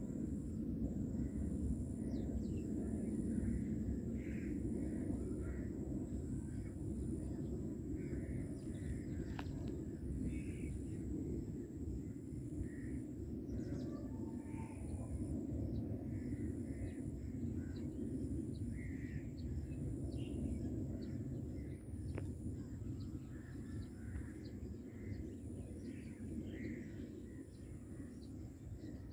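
Steady low rumble of a jet airliner flying high overhead, easing off a little near the end, with birds calling now and then.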